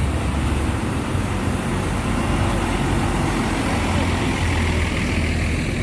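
Steady road traffic noise with a heavy vehicle's engine running close by; no horn sounds.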